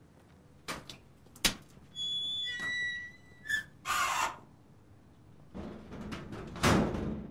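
A key and lock clicking a few times on a sheet-metal garage door, then the door's hinges squealing as it is pulled open, followed by the steel door scraping as it swings wide.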